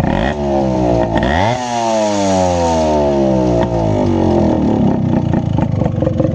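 Yamaha RX135's single-cylinder two-stroke engine, fitted with a modified silencer, idling with a rapid crackle and revved twice. There is a short blip just after the start, then a higher rev about a second and a half in that winds slowly back down to idle.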